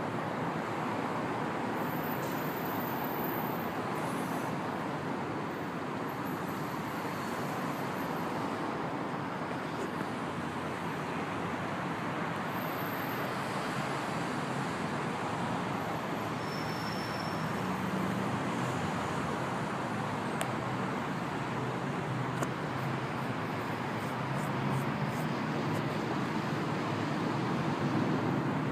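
Steady traffic noise: an even rumble and hiss, getting a little louder near the end.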